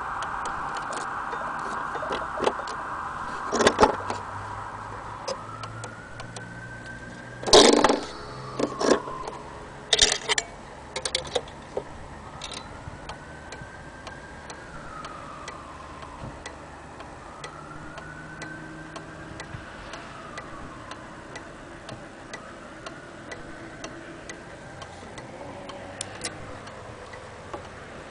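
Korean-made pendulum wall clock ticking, with a few louder knocks and clicks along the way. A steady tone at the start fades out within the first few seconds.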